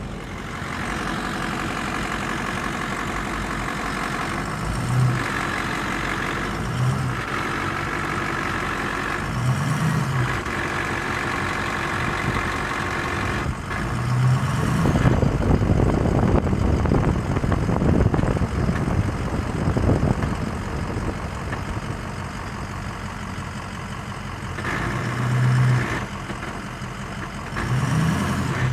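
Ford F-250's 6.0L Power Stroke V8 turbo-diesel engine running, with the grinding noise that is the truck's fault. Its sound swells briefly several times, with a louder, rougher stretch in the middle.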